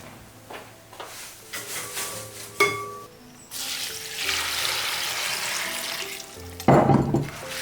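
Soft instrumental background music over kitchen cooking sounds: a few light clicks and clinks, then a steady hiss from about halfway through, and a louder thump near the end.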